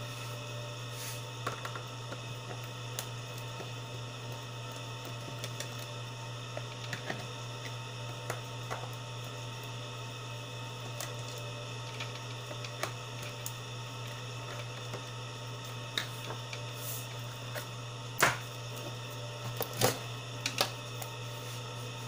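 Scattered small clicks and taps of a screwdriver backing the screws out of a black plastic project box, over a steady low hum. Louder clacks of the plastic case being handled come near the end.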